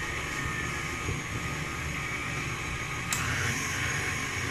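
KitchenAid Artisan stand mixer running steadily, its flat beater churning cupcake batter in the steel bowl, with a single sharp click a little after three seconds in.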